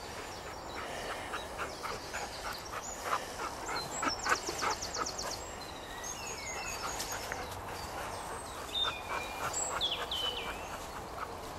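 Wild birds singing: a rapid trill of repeated high notes about four seconds in and short slurred whistles near the end, over footsteps brushing through long grass.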